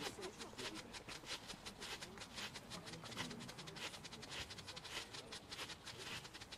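Firework strobe pots (Pyrotrade SST-X-60 strobes) popping faintly in rapid, irregular snaps, several strobes going at once so the pops overlap.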